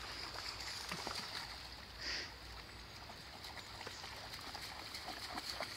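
Faint water sloshing and lapping as a Belgian Shepherd (Groenendael) dog wades through shallow river water, with one brief louder swish about two seconds in.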